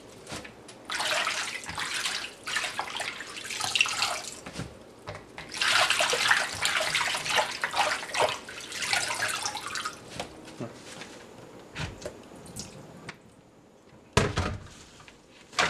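Water splashing in a plastic bowl as hands swish and rinse leafy greens (ponnanganni, dwarf copperleaf), in several bursts of sloshing. Near the end there is a short loud thump as the bowl is handled in the steel sink.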